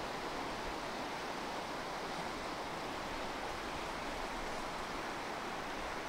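Mountain stream rushing, a steady, even rush of running water.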